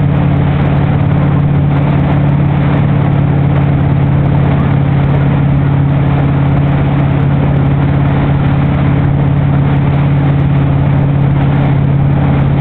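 Motorboat engine running steadily at towing speed with a constant hum, over the rush of water from the boat's wake.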